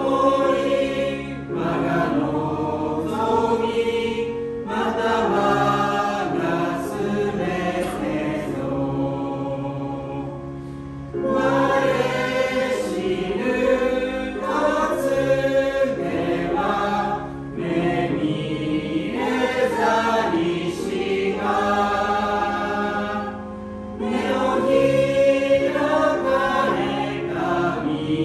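A hymn sung by a group of voices with accompaniment, the singing dipping briefly between lines about eleven seconds in and again about twenty-four seconds in.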